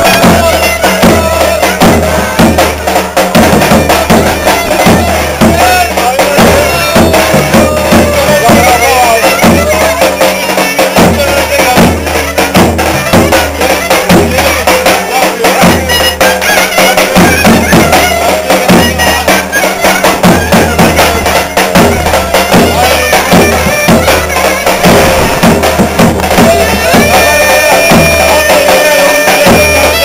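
Live Turkish folk dance music: a large davul bass drum beaten in a steady beat under a loud wind-instrument melody.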